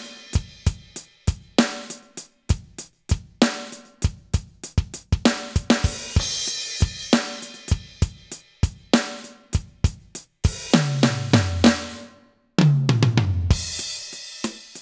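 Aroma TDX-25 electronic drum kit playing its 'Old Rock' preset in a rock groove: kick, snare and hi-hat with a crash cymbal every couple of seconds. Near the end come two tom fills running down in pitch, with a sudden cut-off between them.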